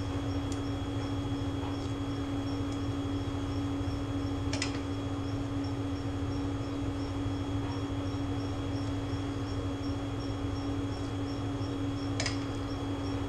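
Steady hum of a fan or household appliance with a fixed low tone, under a faint regular ticking, with two short clicks, one about four and a half seconds in and one near the end.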